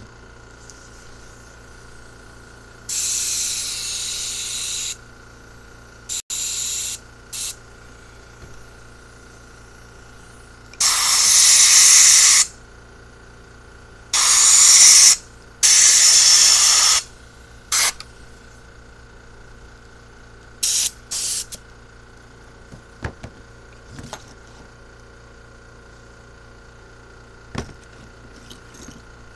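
Compressed-air blow gun blowing through a four-barrel carburetor body in a series of loud hissing blasts, some brief puffs and some lasting a second or two. After the blasts stop, a few faint light clicks follow as the carburetor is handled.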